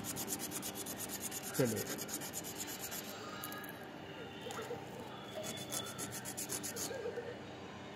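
Carbon brushes of an angle grinder being rubbed back and forth on abrasive paper, a fast, even scratching. This levels their faces to sit properly on the armature's commutator. The rubbing stops about three seconds in and starts again for a while near the end.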